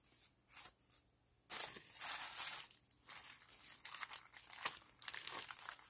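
Tissue paper and packaging crinkling and rustling as paper craft pieces are picked up and moved. Two short rustles in the first second, then steady crackling rustle from about a second and a half in.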